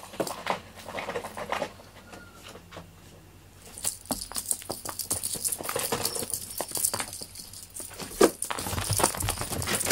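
Irregular patter and soft thumps of a cat's paws on a foam floor mat as it chases a feather wand toy, with the feathers brushing and flicking across the mat. There is a quieter stretch about two seconds in before the scampering picks up again.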